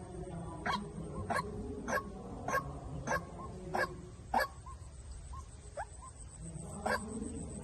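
White-breasted waterhen (chim quốc) lure call: short, sharp notes repeated about every 0.6 seconds, thinning out to a few weaker notes for a couple of seconds past the middle before picking up again near the end.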